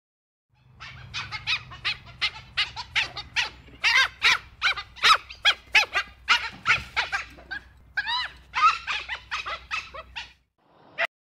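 Dhole (Asian wild dog) giving a rapid run of short, high-pitched squeaky calls, about three or four a second, some bending up and down in pitch. The run stops after about ten seconds and is followed by one last short call.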